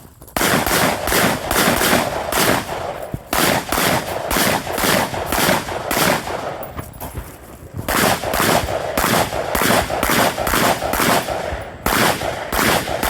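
Rifle fired in rapid strings of shots, several a second. There are short breaks about three, seven and twelve seconds in.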